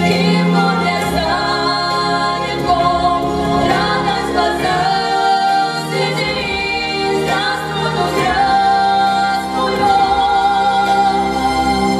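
Two female voices singing a duet over a recorded backing track, closing on a long held note.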